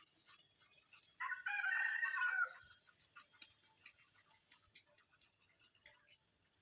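A rooster crows once, about a second in, a single call lasting about a second and a half, over faint scattered ticks.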